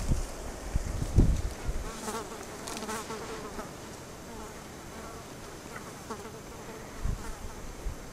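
A flying insect buzzing close to the microphone, its pitch wavering as it moves about. A few low bumps on the microphone come near the start and again near the end.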